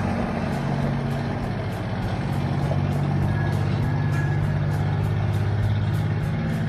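The Detroit Diesel 12V71, a two-stroke V12 diesel, in a 1974 Kenworth truck, running steadily.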